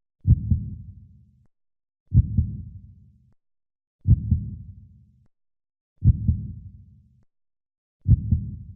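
Heartbeat-like sound effect: five low double thumps, evenly spaced about two seconds apart, each fading out over about a second, with complete silence between.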